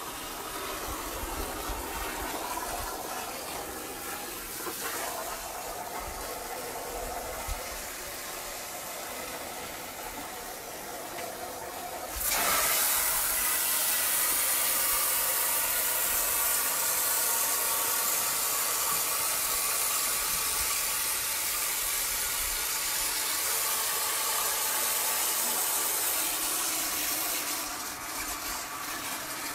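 Water rushing hard from a hose: it starts suddenly about twelve seconds in and runs steadily until it stops shortly before the end.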